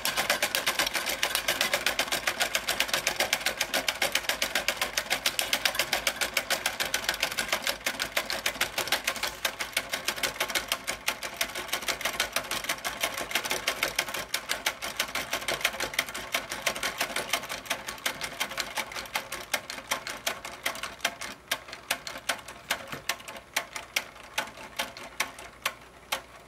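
1930s Chein Popeye Overhead Bag Puncher tin wind-up toy running: its clockwork and punching arms make a rapid mechanical clatter. The clatter slows and gets quieter over the last several seconds and stops at the end as the spring runs down.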